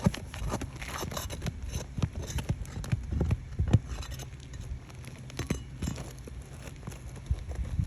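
Irregular knocks, taps and scrapes of work on old, brittle asphalt roof shingles, over a steady low rumble.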